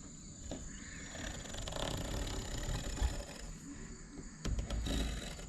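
A small knife scraping along window screen mesh, trimming the excess next to the newly pressed-in spline, with a few low knocks near the middle and end. A steady high cricket trill runs behind it.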